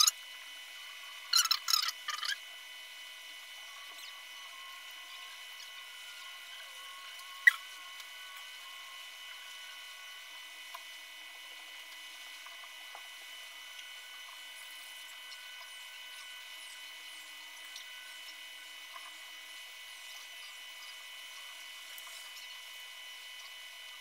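Soldering iron tip scraping over an iPhone XS logic board's pads in a short cluster of rasping strokes about a second and a half in, then one sharp click about seven and a half seconds in, over a steady high hiss of bench equipment.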